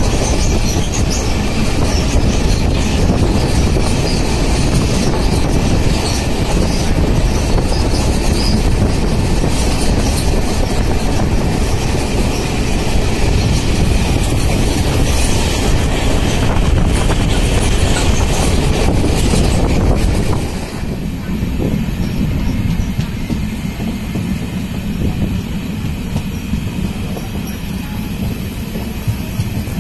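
Sawantwadi–Diwa passenger train running along the track, heard from on board: a loud, steady rush of wheels on rail. About twenty seconds in the noise drops and turns duller as the hiss falls away, leaving a lower rumble.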